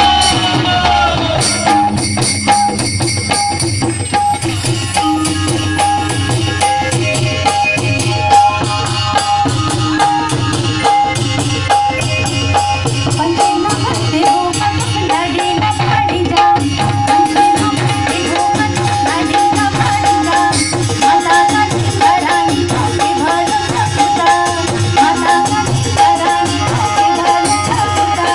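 Uttarakhandi folk dance music played loud, with a steady drum beat, a held note sounding throughout and a melody line weaving over it in the second half.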